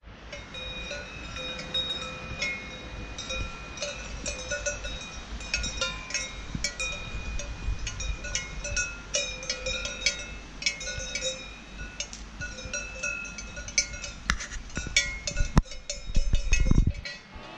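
Cow bells on grazing cattle clanking irregularly, many uneven strokes that ring on. Under them a low rumble that grows louder near the end.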